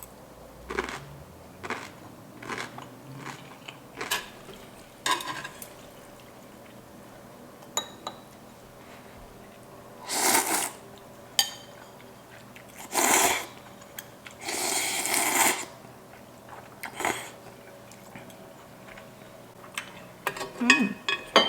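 Eating sounds close to the microphone: scattered clicks of chopsticks or cutlery on dishes and mouth sounds, with three louder short noisy bursts about halfway through.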